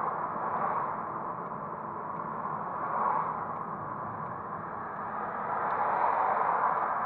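Road and tyre noise from a moving car, heard inside the cabin through a dash camera's built-in microphone: a steady rushing hiss that swells a little a few times.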